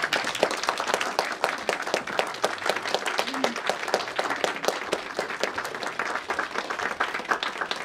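Audience applauding: a dense, steady patter of many hands clapping, thinning slightly near the end.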